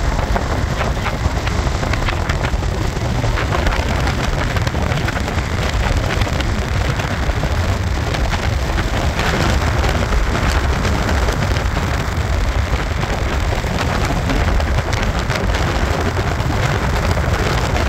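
Ford pickup truck driving on a gravel road: a steady low road rumble with a dense crackle and patter of gravel under the tyres, heard through the open side window.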